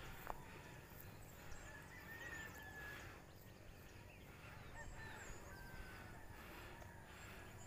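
Quiet open-air ambience with a low rumble, and a rooster crowing faintly in the distance twice.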